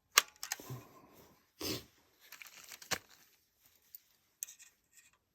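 Handling of an AR-15 rifle and magazine: a sharp click about a quarter second in, a short scraping rustle near two seconds, another click near three seconds, and a few lighter clicks after.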